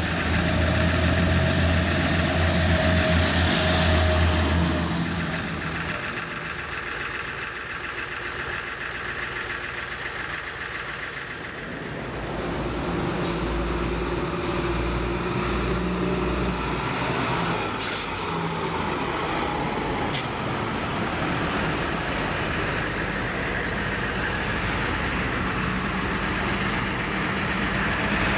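Real vehicle engine sounds dubbed over model cars: a lorry engine running loudly for the first few seconds, then dying away. From about twelve seconds in, a tractor engine runs with a low, pulsing note, and two brief clicks come partway through.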